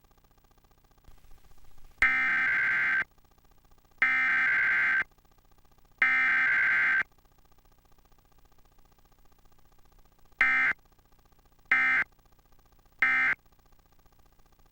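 Emergency Alert System digital data bursts (SAME header and end-of-message codes) in an EAS test. Three harsh, buzzy one-second header bursts a second apart, then about three seconds later three short end-of-message bursts. No attention tone or voice message comes between them.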